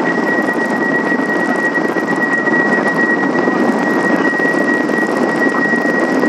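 Helicopter turbine and rotor noise: a steady rushing sound with a constant high whine.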